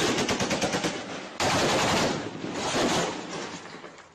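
Automatic gunfire in rapid bursts during an armed tribal clash. The first burst stops about a second in, a second starts sharply just after, and a third follows and trails off.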